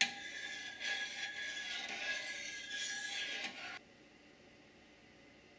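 Metal spoon stirring sugar and water in a stainless steel saucepan, scraping and grating against the pan bottom while the sugar is still dissolving. The stirring stops abruptly about four seconds in.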